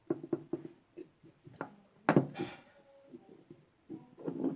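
Small metal parts of a Norinco NP34 pistol clicking and scraping as its decocker spring is worked into place by hand, with one sharp click about two seconds in.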